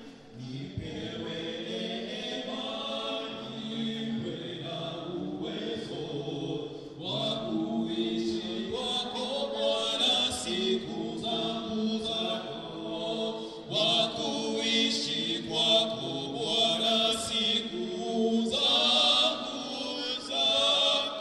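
A church congregation singing a hymn together, many voices on sustained notes, growing louder a few seconds in.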